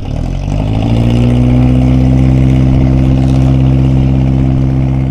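A boat engine running close by. It rises a little in pitch over the first second or so, then holds at a steady speed.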